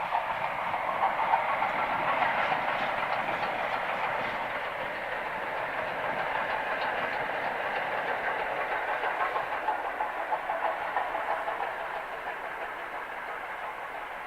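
A steam-hauled train running past, its wheels clattering over the rail joints, the sound easing off over the last few seconds.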